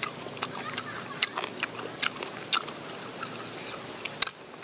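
Close-up chewing of roasted soft-shelled turtle, meat and chewy shell, heard as a string of sharp, irregular mouth clicks every few tenths of a second, with one louder click about four seconds in.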